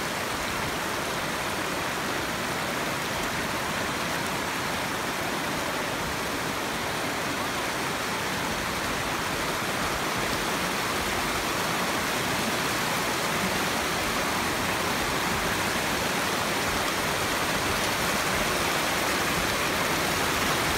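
Small mountain stream rushing and splashing over rocks, a steady rush of water that grows a little louder in the second half.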